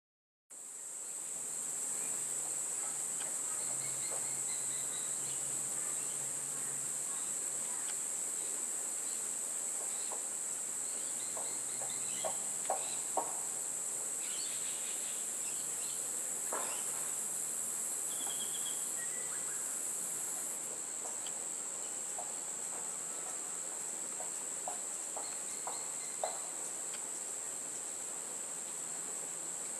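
Steady high-pitched drone of insects, with faint short bird chirps now and then and a few soft sharp clicks, three of them close together about halfway through and one more near the end.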